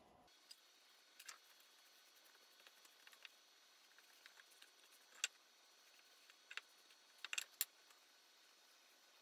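Near silence with scattered faint clicks and light taps of small objects being handled on a workbench. The sharpest comes about five seconds in, and a quick cluster follows near seven seconds.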